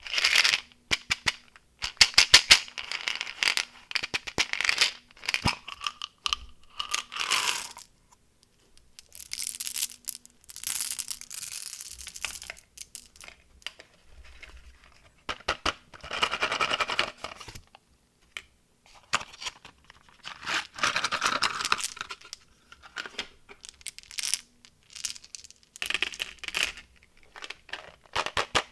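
Candy packaging being handled and opened at close range: plastic wrappers crinkling and tearing, with quick runs of sharp clicks and ticks. The sounds come in irregular bursts with short pauses between them.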